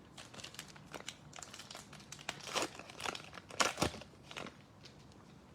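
Plastic foil wrapper of a trading card pack crinkling in the hands, with irregular sharp crackles as the pack is handled and opened.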